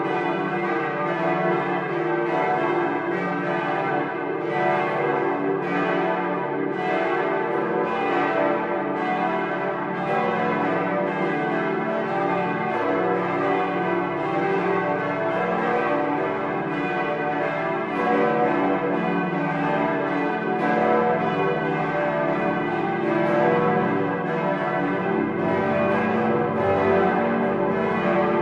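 Several large swinging church bells of Bremen Cathedral ringing together in a continuous peal, their strikes overlapping irregularly and each tone ringing on under the next.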